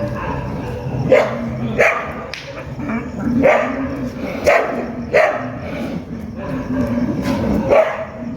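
Street dog barking repeatedly, about eight short, sharp barks at uneven intervals.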